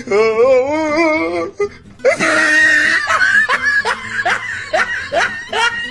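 Laughter over background music. It opens with a long wavering high vocal sound, then from about two seconds in breaks into a quick run of short rising 'ha' syllables, about four a second.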